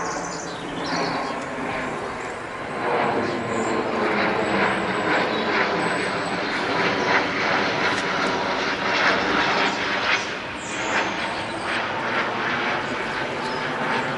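Hawker Beechcraft 400XP business jet's twin turbofan engines passing overhead on approach: a steady jet rush that swells about three seconds in and holds.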